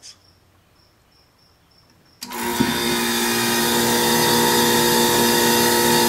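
Quiet for about two seconds, then a heat pump's compressor starts abruptly and runs with a steady hum over an even rushing noise.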